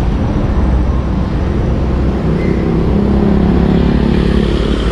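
Road traffic passing close by at low speed: cars and a small motorcycle. An engine drone swells about halfway through as a pickup truck and a motorcycle drive past.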